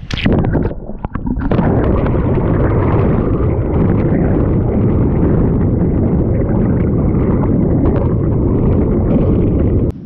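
Water splashing and rushing over a camera's microphone as the camera is dunked beside a sailboat moving fast. There is a sharp splash just after the start and a brief lull near one second, then a dense, steady gurgling rush of water.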